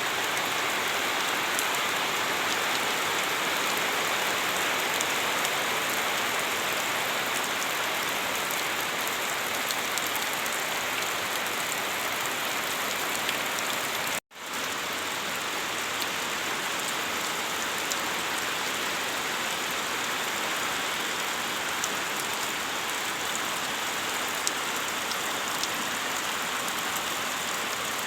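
Steady rain falling on surfaces, an even hiss with scattered drop ticks. It cuts out for an instant about halfway through.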